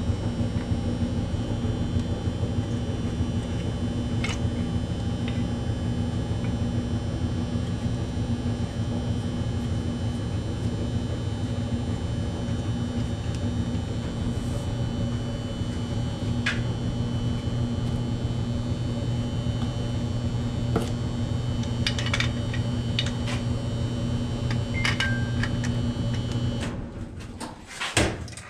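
Clothes dryer running with a steady hum, with a few light ticks along the way, then switching off near the end.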